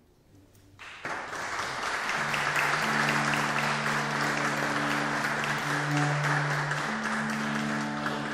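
A brief hush after the music ends, then audience applause starts about a second in and carries on steadily, with a few low held tones beneath it.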